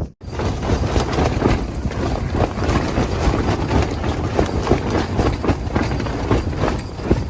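Strong wind blowing hard against a rooftop tent, with the fabric flapping and snapping in quick, irregular beats over a loud, steady rush.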